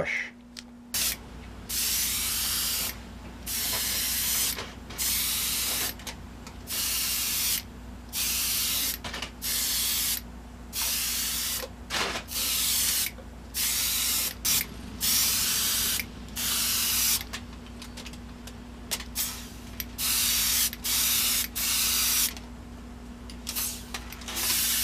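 Iwata airbrush spraying gold paint in many short bursts of hiss, each about a second long with brief pauses between, as the trigger is worked on and off. It is laying a touch-up coat over a back-masking mistake on painted trim.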